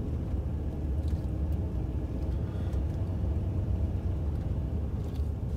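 Low, steady engine and road rumble heard inside a moving vehicle's cabin.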